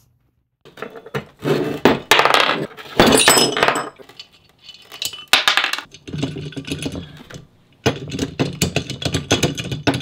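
Metal clanking, clinking and scraping as a steel pipe and brake rotor are handled and worked together by hand, with loose washers and bolts clinking on the bench. The clatter comes in spells, with a dense run of rattling clinks near the end.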